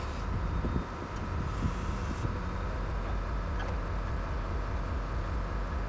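An engine running steadily with a low rumble, with a few faint knocks in the first couple of seconds.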